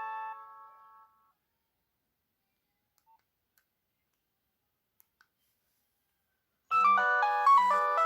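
Nokia 6030 ringtone melody fading out over the first second. A few seconds of silence follow, with a couple of faint clicks. Another ringtone then starts abruptly about 6.7 seconds in: a quick electronic tune of several notes at once over a low, regular beat.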